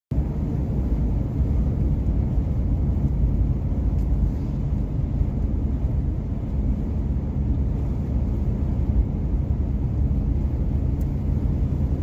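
Steady low rumble of a car driving on a snow-covered highway, heard from inside the cabin: tyre and road noise with the engine running underneath.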